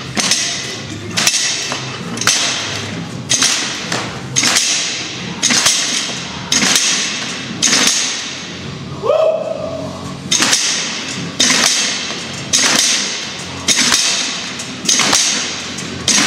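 Heavy battle rope slammed against the gym floor about once a second, each a sharp slap with a decaying echo off the large room. The rhythm pauses once, about nine seconds in.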